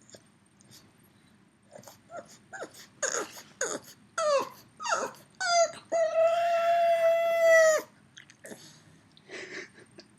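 Pug whining in a run of short cries that each fall in pitch, then one long steady howl of about two seconds, then a few softer whimpers. It is a dog calling for a missing companion.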